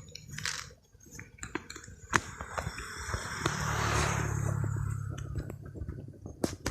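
Kittens crunching dry cat food, heard as scattered small clicks and crunches. A motor vehicle passes by in the middle, its hum swelling and fading.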